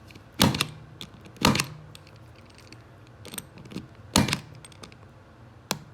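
Spring-loaded 110 punch-down tool snapping as it seats each conductor of an ethernet cable into a jack's contacts and cuts off the excess wire. The sharp snaps come roughly once a second; the loudest are about half a second in, about a second and a half in, and about four seconds in.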